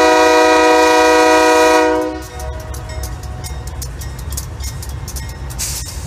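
Nathan Airchime K3LA three-chime air horn of a Union Pacific GE C44-9W diesel locomotive sounding one long blast, a loud chord of several tones that cuts off about two seconds in. A steady low rumble runs underneath.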